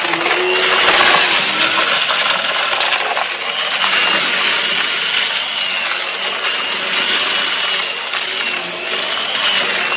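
Hart stick vacuum running with a steady high motor whine while its floor head sucks up a thick pile of confetti and debris from carpet, giving a continuous messy crunch and rattle as the bits go up.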